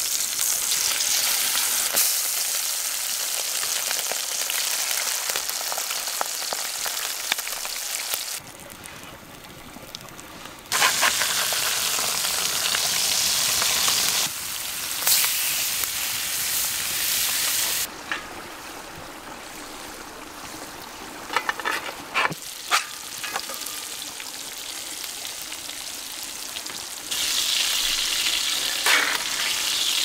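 Brook trout fillets sizzling as they fry in oil in a cast iron skillet over a campfire. The sizzle gets louder and softer in turns several times, and a few sharp clicks of the metal spatula come around the middle.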